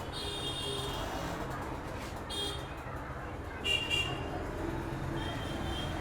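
Vehicle horns tooting about four times over a steady low traffic rumble, the loudest toot a little past the middle.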